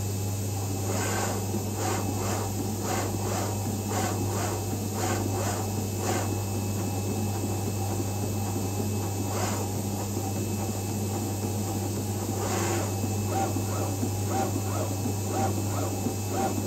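Vulcan FC500 flatbed cutting plotter running a creasing and cutting job: its tool head moves in short quick strokes, about two a second for the first several seconds and then only now and then, over a steady low hum.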